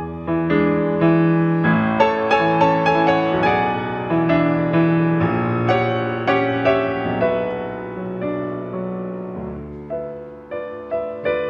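Piano playing: a flowing run of struck notes and chords, easing off about nine seconds in before new notes are struck.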